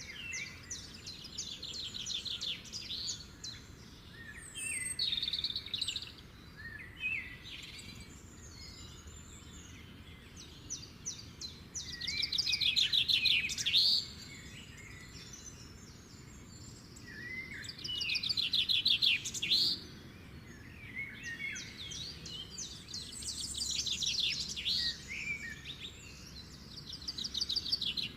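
Small birds singing: rapid trilled phrases of quick, high notes, each a second or two long, repeated every few seconds and loudest around the middle, over a faint steady background hiss.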